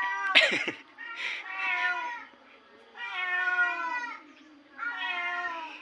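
Recorded baby cats crying, played loudly: a string of about four high, drawn-out kitten meows, each about a second long with short gaps between them.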